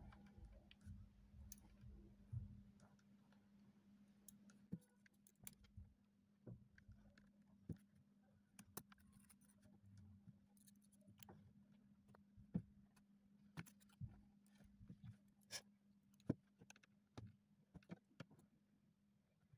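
Faint, scattered clicks and taps of metal surgical instruments, a needle holder and forceps, handled while stitching into a cloth practice pad, over a steady low hum.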